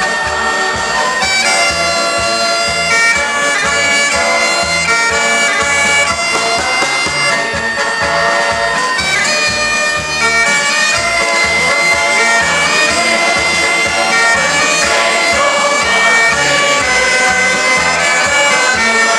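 Scottish showband music: held melody notes over a steady beat, with no singing.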